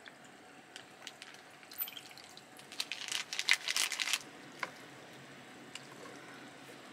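A short crackly splash of liquid being poured, lasting about a second and a half about three seconds in, with a few faint ticks before and after.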